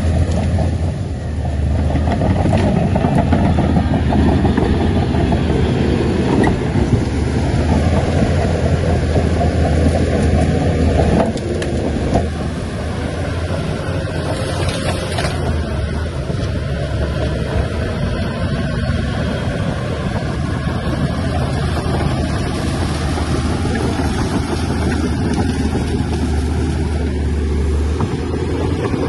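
Heavy diesel engine of earthmoving machinery running steadily, a little quieter from about twelve seconds in.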